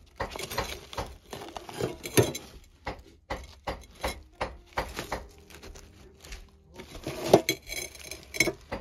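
Rummaging: old rags being pulled out of a metal box that holds a glass bottle, giving irregular scrapes, rustles and small knocks against metal and glass, the loudest knock about seven seconds in.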